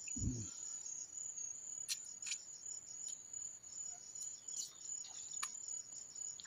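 An insect chirring steadily in a high, thin trill made of rapid even pulses, with a few faint clicks and a brief low sound at the very start.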